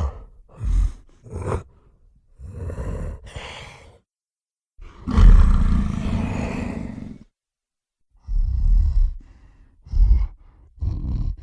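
Giant gorilla vocal sound effects: a string of separate roars and grunts, the longest and loudest a roar of about two seconds starting near five seconds in, the rest short grunts and huffs with silence between them.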